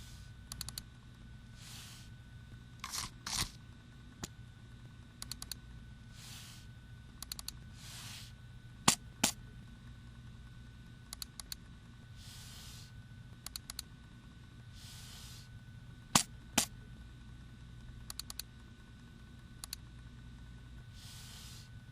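Computer mouse clicking: small groups of quick clicks every second or two, with soft short swishes between them and two louder double clicks, one about nine seconds in and one about sixteen seconds in.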